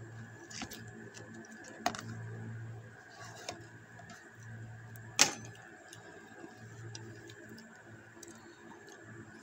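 Quiet background with a low hum that swells and fades every second or two, a faint steady high tone, and a few sharp clicks, the loudest about five seconds in.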